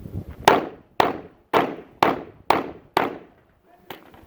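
Pistol fired in a quick string: six shots about half a second apart, each with a short echo. A fainter sharp crack follows about a second later.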